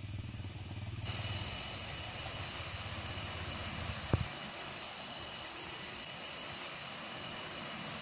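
Steady outdoor background hiss and hum, with several steady high whining tones and a single short thump about four seconds in.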